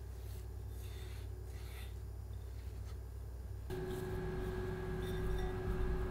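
Hands kneading and patting a soft ball of tofu doughnut dough over a glass bowl: faint soft rubbing, over a low steady hum. About four seconds in, a faint steady tone joins the hum.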